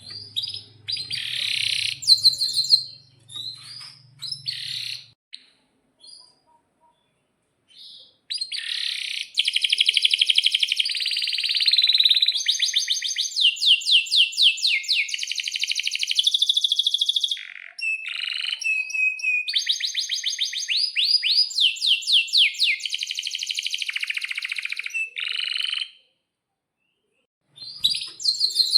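Male domestic canary singing: short chirping phrases, a pause of a few seconds, then long fast trills and rolling tours that run for most of the rest, stopping briefly near the end before the song starts again.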